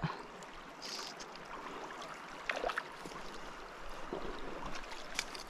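Steady rush of a shallow river's current flowing past, with a few brief faint ticks.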